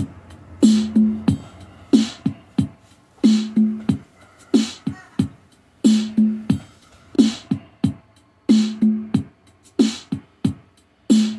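Theme music: a hip-hop drum beat with deep bass-drum hits that drop in pitch, the same bar repeating about every 1.3 seconds.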